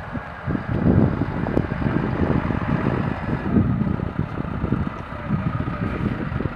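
MAN fire engine's diesel engine running as the truck drives slowly toward the microphone, with wind buffeting the microphone.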